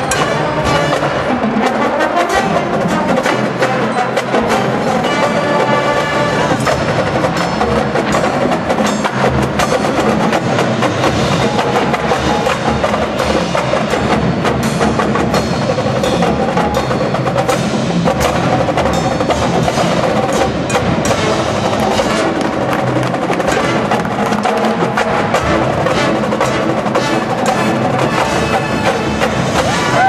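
A marching band's percussion section playing on its own: the drumline's snare and bass drums with the front ensemble's mallet keyboards, dense drum strokes throughout.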